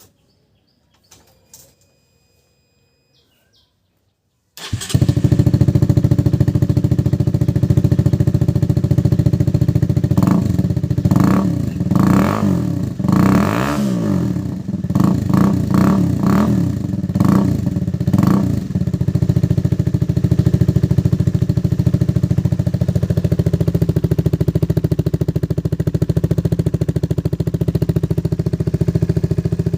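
Motorcycle fitted with an Akrapovic dual-outlet exhaust with its dB killer in place: after near silence the engine comes in abruptly about five seconds in and idles, then a string of quick throttle blips rises and falls over several seconds before it settles back to a steady idle.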